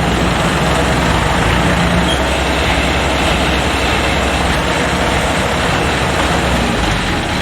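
Rice combine harvester's diesel engine and threshing machinery running steadily, a constant low drone with a broad mechanical rumble.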